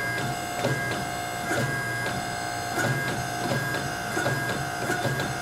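Forging press running with a hot blade set between its dies: a steady machine whine with several fixed tones over a low pulsing hum, without hammer blows.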